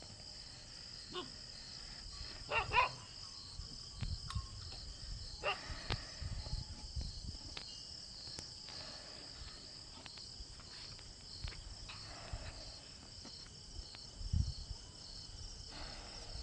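Insects chirping in a steady, high, fast-pulsing drone, typical of crickets, with scattered short knocks and rustles and one brief louder rustle about two and a half seconds in.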